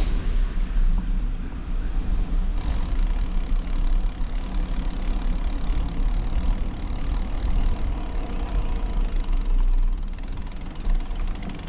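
Wind buffeting the microphone of a handlebar-mounted action camera during a bicycle ride, a loud, uneven low rumble with road and tyre noise underneath.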